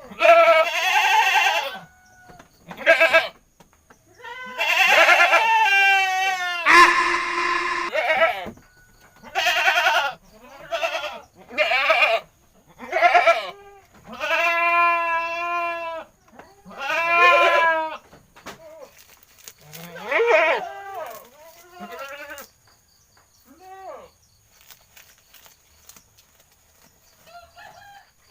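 Goat bleating over and over in loud calls, some long and quavering, others short, with the calls growing faint over the last few seconds.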